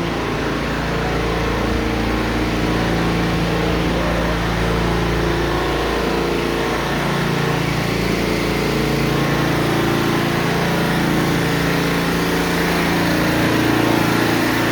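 Steady engine drone over a low rumble, its pitch drifting slowly up and down.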